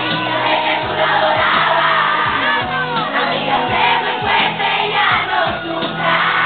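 A large crowd of students singing a chant together, many voices at once, loud and unbroken, with a steady low beat underneath.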